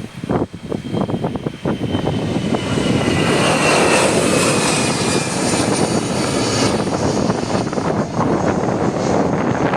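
Airliner engines passing close by. The noise swells to a loud, steady rumble a couple of seconds in, while a high whine slides down in pitch as the aircraft goes past. Gusts of wind hit the microphone at the start.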